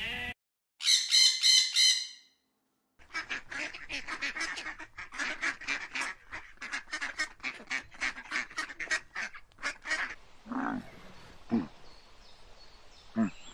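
Waterfowl calling. One loud buzzy call comes about a second in, then after a brief silence a long run of rapid, repeated calls lasting about seven seconds, with a few lower calls near the end.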